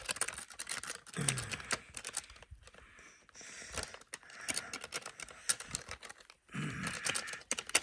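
Wire coat hanger scraping and clicking against bone inside an elk skull's brain cavity as the brain is stirred up, a rapid, irregular run of clicks and scrapes.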